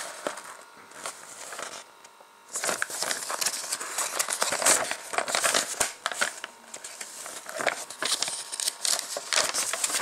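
Paper instruction booklet rustling and crinkling as its pages are handled and turned, with a short lull about two seconds in.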